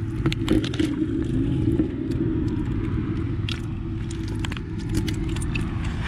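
A steady low rumble with scattered light clicks and scrapes from freshly caught fish wriggling in a clay pot.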